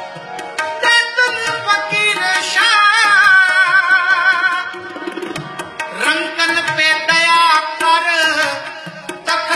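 Sikh kirtan: a man sings a devotional melody with ornamented, sliding runs over held notes, accompanied by tabla and harmonium.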